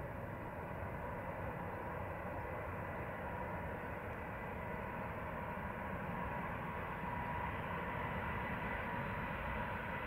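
Boeing 747-400 freighter on final approach, its four turbofan engines at approach power: a steady rumble with a thin high whine, slowly growing louder as the aircraft nears.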